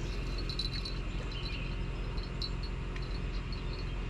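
Insects chirring in a tropical swamp: a steady high buzz with quick flickering pulses, over a low steady hum.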